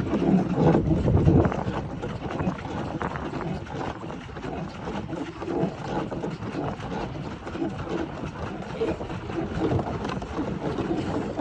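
Pedal boat's paddle wheel churning the water, a steady irregular splashing, with wind buffeting the microphone; loudest in the first second or so.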